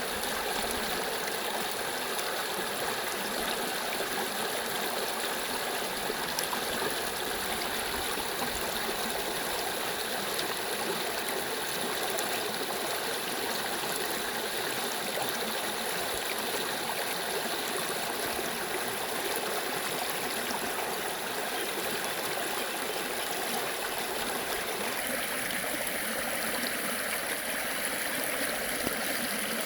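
Water of a stream flowing, a steady unbroken rushing.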